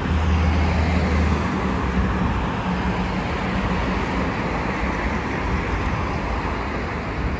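Steady city road traffic noise from cars driving past, with a deeper engine rumble in about the first second and a half.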